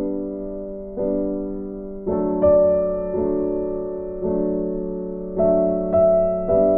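Background music: gentle electric piano chords struck about once a second, each fading before the next.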